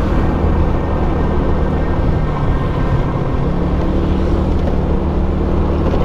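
Small motor scooter's engine running steadily while riding along a road, with road and wind noise.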